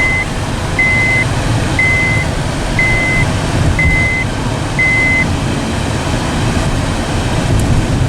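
Six evenly spaced high electronic beeps, about one a second, that stop a little past halfway through, over a steady low vehicle rumble.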